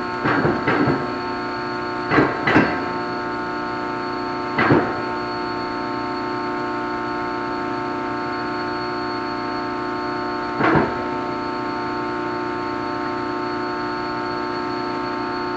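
Steady hum of shop machinery running, with several fixed tones, broken by a few short metal clanks: a quick cluster near the start, two about two seconds in, one near five seconds and one near eleven.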